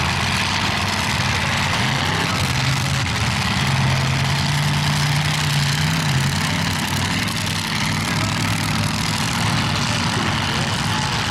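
Demolition derby car engines running, one held at a steady higher speed for a few seconds around the middle, over a dense, continuous wash of noise.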